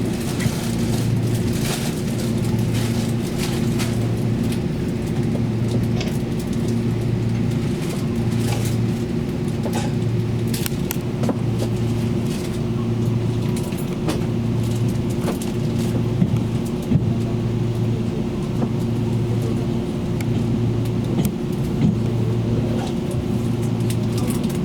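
Taiwan Railway Tze-Chiang express train running, heard from inside the passenger car: a steady low hum that throbs about every second and a half, with scattered clicks and knocks.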